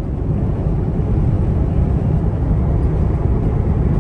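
Steady low rumble of road and engine noise from a vehicle cruising at highway speed.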